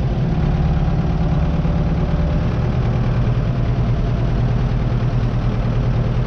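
Tractor engine running steadily at low speed as the tractor creeps along in first gear.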